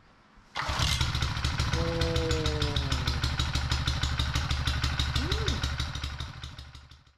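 Petrol plate compactor with a Honda GX engine starting about half a second in and running, with a fast, even hammering of the vibrating plate. It fades out near the end.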